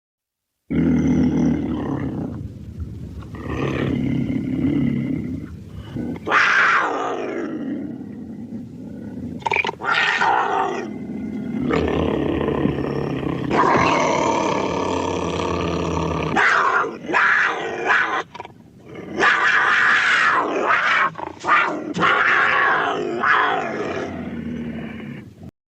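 Sound-effect dinosaur calls for the tyrannosaurid Alioramus: a long series of roars and growls, some deep and some gliding up into higher screeches, with short breaks between them. It starts under a second in and cuts off abruptly near the end.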